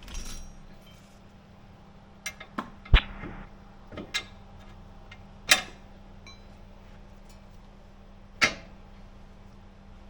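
Hand tools knocking and clinking against metal during work on a car's front suspension: several sharp, irregular strikes, the loudest about three seconds in, over a faint steady hum.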